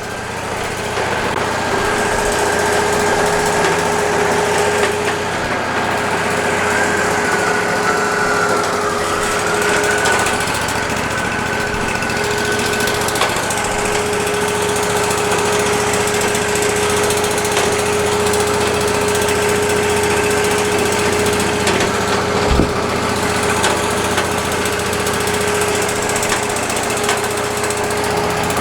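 Wood-Mizer LT40 hydraulic sawmill running steadily, its engine humming under a thin hydraulic whine that sags briefly about a third of the way in. A single knock about three-quarters of the way through.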